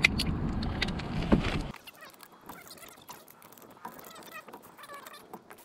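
A loud low rumbling noise that cuts off suddenly about two seconds in, then faint metallic clicks and scrapes of a socket wrench being fitted to the wheel's lug nuts.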